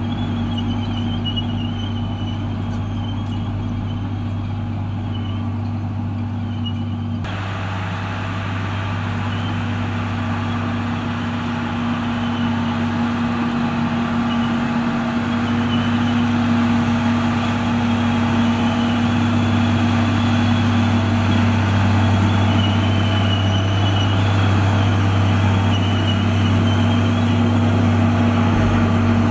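Komatsu D58E bulldozer's diesel engine running with a steady drone. About seven seconds in, a harsher, wider noise joins it abruptly, and the sound grows gradually louder toward the end.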